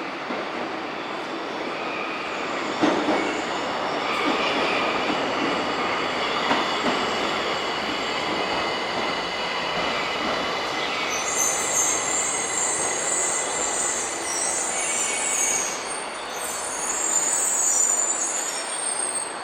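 Tokyo Metro 1000 series subway train moving through the station, its wheels running on the rails. High-pitched wheel squeal sets in about halfway through and lasts several seconds.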